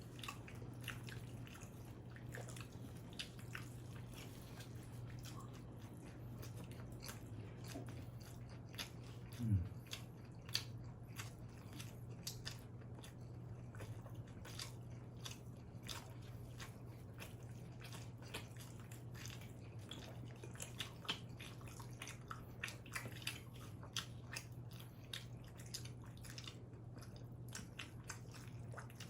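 Close-miked chewing and biting of combination pizza: a steady run of small wet mouth clicks and crunches over a low steady hum. About nine and a half seconds in, a brief louder low sound slides down in pitch.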